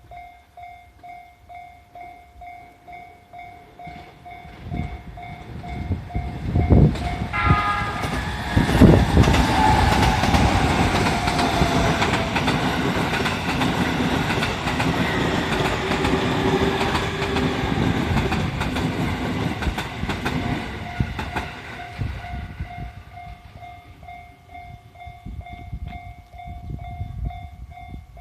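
Level-crossing bell dinging in a quick steady beat, about two to three strikes a second, as a JR East E501 series electric train runs through the crossing. A short horn note sounds about seven seconds in. Then comes the rumble and clickety-clack of the wheels, loudest from about eight to twenty-one seconds, fading away while the bell keeps ringing.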